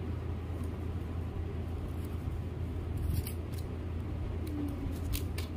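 Scissors snipping through paper strips: a few short snips, the clearest about three and five seconds in, over a steady low hum.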